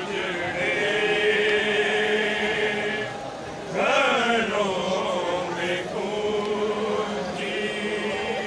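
A crowd of men chanting a noha, a mourning lament, together in long held notes; one phrase dies away and a new one starts loudly about four seconds in.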